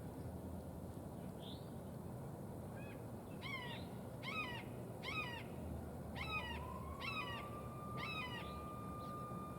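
A bird calls six times, about a second apart. From about six seconds in, a homemade tornado siren's tone rises in pitch and then holds steady, faint under the calls and the background noise.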